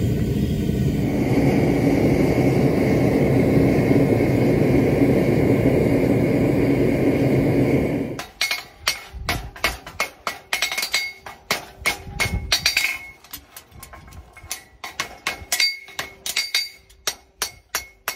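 A steady rumbling noise for about the first eight seconds, cutting off abruptly. Then a hammer strikes a steel horseshoe on the anvil, about three ringing metal clinks a second with short pauses, as the shoe is shaped.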